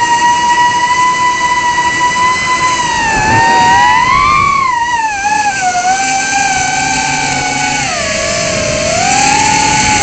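Tinyhawk 2 Freestyle micro quadcopter's brushless motors and propellers whining, heard close up from the camera mounted on the drone. The pitch follows the throttle: it rises about four seconds in, drops lower from about six seconds, dips further near eight seconds and climbs again near the end.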